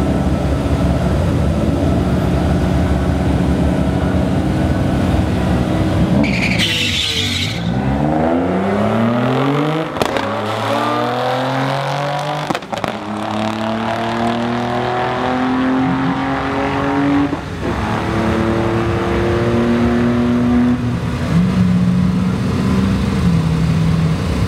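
Mazda RX-8 rotary and twin-turbo Nissan 300ZX engines idling and revving at the start line, then launching about six seconds in with a short high hiss. Their notes climb and drop through each gear change as they pull away down the drag strip, with two sharp pops along the way.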